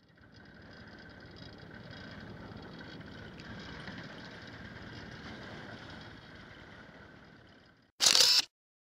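Boat engine running steadily at idle on a small fishing boat, with a short, loud burst of noise near the end.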